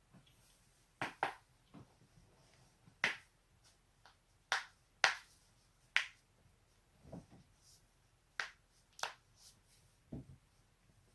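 Joints cracking: about ten sharp, separate pops, spaced irregularly a second or so apart.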